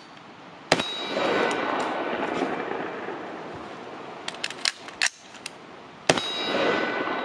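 AR-15-type rifle fires a single shot about a second in, then a quick run of metallic clicks and clacks as the magazine is changed, then a second shot about six seconds in. Each shot is followed by a ringing metallic tail and echo.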